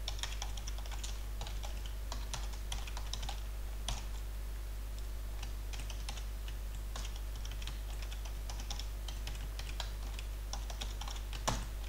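Typing on a computer keyboard: keystrokes clicking in short irregular runs with brief pauses between them, over a steady low hum.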